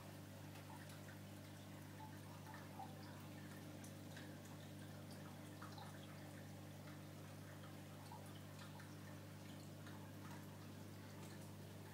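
Faint steady hum of reef aquarium equipment, with light water dripping and trickling as small scattered ticks over it.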